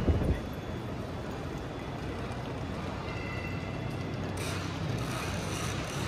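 Wind buffeting the microphone stops abruptly just after the start, leaving a steady low hum and hiss of background ambience. A brighter hiss comes in about four and a half seconds in and cuts off at the end.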